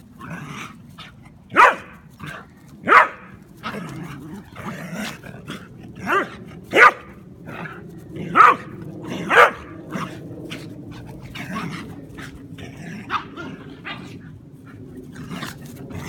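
A German Pinscher and a Rat Terrier playing rough, with about six sharp barks in the first ten seconds and low growling between them. After that the barks are fewer and quieter.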